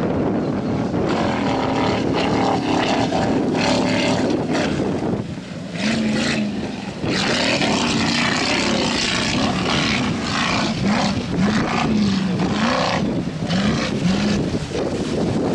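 V-24 class offshore racing powerboat engine running at speed some way off, its note rising and falling. Gusts of wind buffet the microphone.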